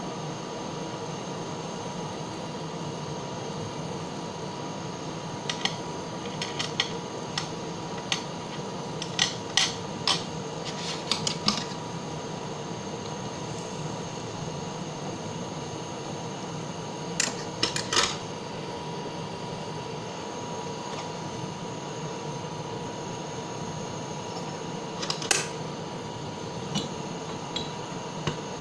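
Butane blowtorch flame running steadily as it heats the silver solder melt in the crucible, with scattered clusters of sharp clicks and taps.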